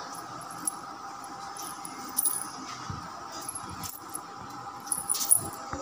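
Heavy silver anklets with small bells and silver toe rings jingling in scattered small metallic clinks as the feet move, with a few soft thumps and a steady hum underneath.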